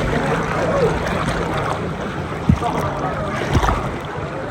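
Water sloshing and splashing around people floating in a water park river, with faint background voices and two brief thumps.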